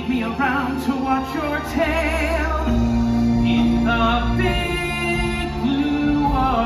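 Musical theatre song: voices singing with vibrato over backing music, with a long held note around the middle.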